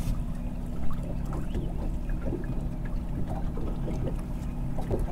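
Water lapping and trickling against a fishing boat's hull while its outboard motor hums steadily at trolling speed, with one brief louder knock about a second in.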